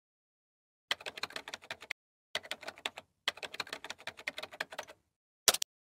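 Computer keyboard typing: rapid key clicks in three quick runs with short pauses between them, then one louder single keystroke near the end.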